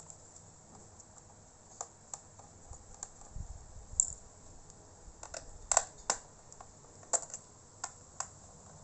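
Scattered sharp clicks and light taps of a laptop's plastic case and keyboard frame being handled and pried during disassembly, with a small screwdriver set down now and then.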